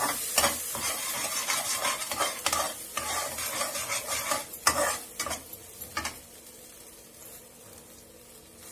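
A steel slotted spoon stirs and scrapes thick ground pirandai (adamant creeper) chutney around a metal kadai while it sizzles over the flame. The stirring strokes stop about six seconds in, leaving a quieter sizzle.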